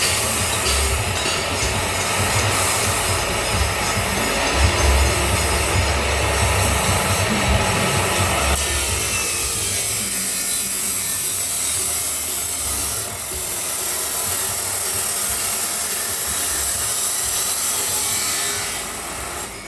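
Grinder cutting through stainless steel pipe, a steady harsh hiss of the disc on metal. The tone shifts about halfway through and the cut dies away near the end.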